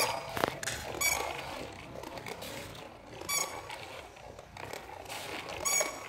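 Toy hen giving four short, high squeaks a second or two apart.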